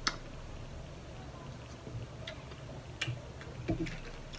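Close-up mouth sounds of someone chewing food: a few scattered soft clicks and smacks.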